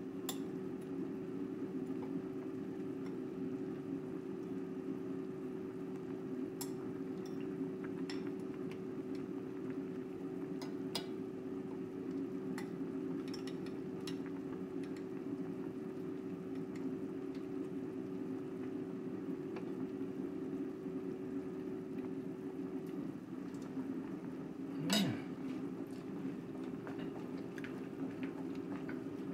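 A metal spoon clinking now and then against a ceramic bowl and plate while soup and chicken are served, with one louder knock near the end. A steady low hum runs underneath.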